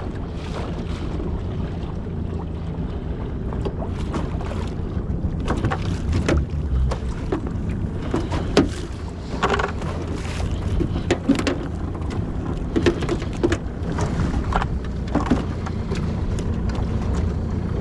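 A boat's motor idling with a steady low hum, with scattered knocks and clatter over it.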